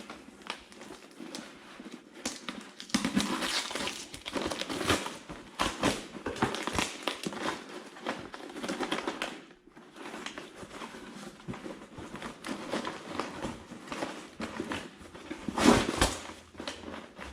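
A cardboard shipping box being opened and unpacked by hand: irregular crinkling and rustling of cardboard and packing material, with scrapes and small knocks as an inner box is worked out. There is one louder knock near the end.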